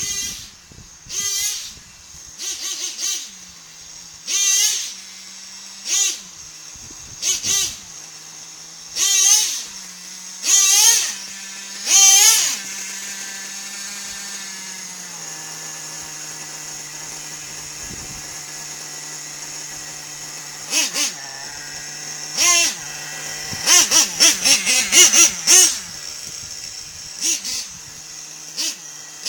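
Nitro RC monster truck's small glow-fuel engine idling with a steady buzz, blipped again and again into short high-pitched revs that rise and fall. The idle drops a little in pitch about halfway, and a quick run of blips comes near the end.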